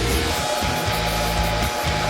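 Background music with held notes over a steady bass line, the held note changing about a third of a second in.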